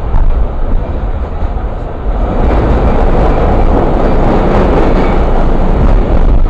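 New York City subway car heard from inside while running: a loud, steady rumble and rattle of the train, growing louder about two and a half seconds in.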